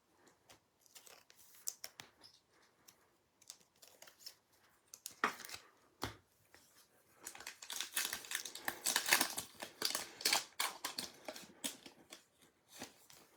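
Trading cards and a foil pack wrapper being handled: scattered light clicks and taps, then a few seconds of crinkling and tearing from about seven seconds in as a pack is opened.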